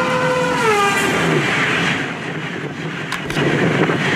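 Amtrak diesel locomotive passing close by with its horn sounding, the horn's pitch dropping as it goes past about half a second to a second in, then the rumble of the passing train. Two sharp clicks about three seconds in.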